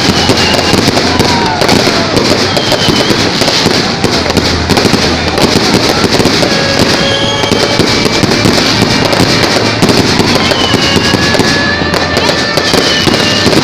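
Fireworks display: a dense, continuous barrage of rapid bangs and crackling, loud throughout, with short whistling tones threading through it.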